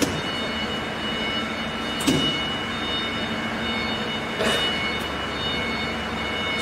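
Steady machine noise with several constant high-pitched tones and a low hum, broken by a few sharp clicks or knocks at the start, about two seconds in, and about four and a half seconds in.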